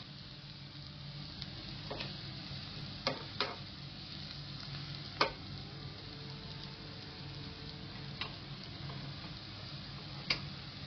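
Shallots, garlic, ginger and curry leaves sizzling in oil in a frying pan, with several sharp clicks of a metal spatula against the pan as they are stirred.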